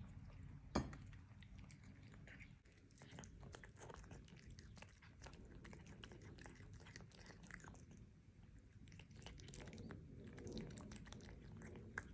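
Bengal cat chewing and crunching a small whole fish, a faint run of irregular wet clicks. One sharp knock about a second in.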